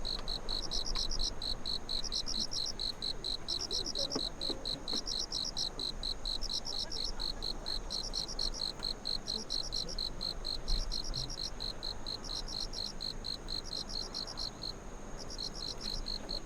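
Insects chirping steadily in a fast, even pulse, with a second, higher trill repeating about every second and a half.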